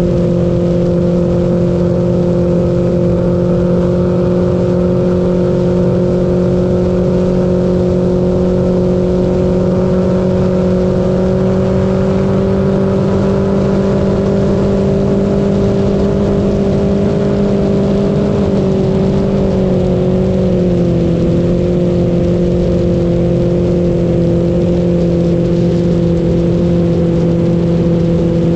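A Mercury Pro XS outboard motor runs steadily, pushing the boat along. It is heard from right beside the cowling. The pitch creeps up slightly through the middle, wavers, and settles a little lower about twenty seconds in.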